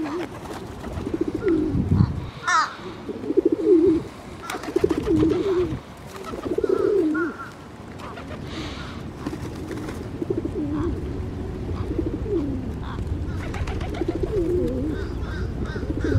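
Flock of feral rock pigeons cooing, low warbling coos following one after another. A brief higher call comes about two and a half seconds in.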